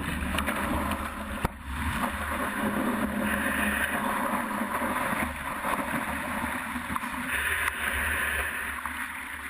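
Whitewater rushing and splashing around a surfboard riding a breaking wave, heard from a camera mounted on the board, with wind rumbling on the microphone. The rush swells twice, and there is a sharp knock about a second and a half in.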